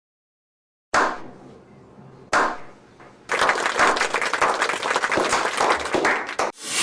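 Edited transition sound effects: two sudden hits, each fading out, then about three seconds of dense, fast crackling like clapping, and a rising swell near the end.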